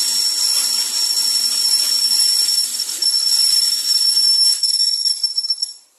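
Retractable wave shade sail being pulled closed, its fabric runners sliding along the tensioned steel wires with a steady high-pitched hiss and whistle. It cuts off abruptly near the end as the shade reaches its stop.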